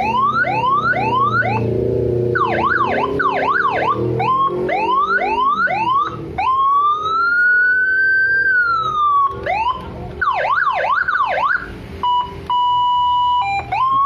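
Landun CJB 100PD electronic siren amplifier sounding its old tone set from the original IC. It cycles through quick rising whoops, fast up-and-down yelp sweeps and a slow wail that rises and falls, then gives a steady single tone near the end before the wail starts again.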